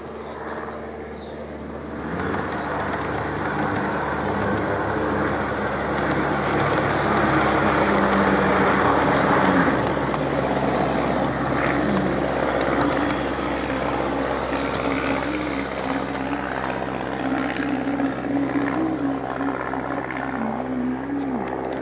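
Large-scale model Class 170 Turbostar train running along the track, a steady mechanical hum with rail noise that swells over the first several seconds as it approaches, its pitch wavering near the end.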